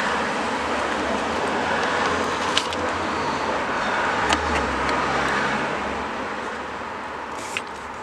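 Steady rushing noise with a few sharp plastic clicks, about a second or two apart, as the OBD port is pried loose from its housing under the dashboard.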